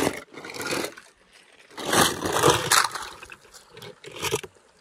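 Die-cast toy cars clattering and scraping in a plastic tub and being tipped out into shallow, stony creek water. The noise comes in about three bursts: at the start, around two seconds in, and briefly near the end.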